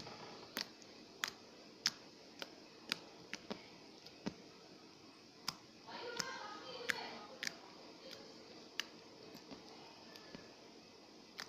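Homemade slime being pressed and squeezed by hand, giving sharp clicking pops: about two a second at first, then more spaced out.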